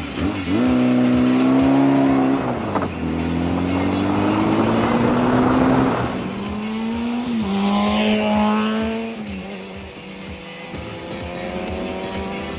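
Motorcycle engine accelerating through the gears: its pitch climbs, then drops sharply at gear changes about two and six seconds in, and it runs lower and steadier toward the end.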